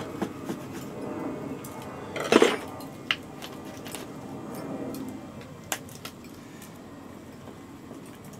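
Metal spoon clinking and scraping against a jar of dry barbecue rub in a run of sharp clicks, with a louder clatter about two and a half seconds in. The clicks thin out after about six seconds.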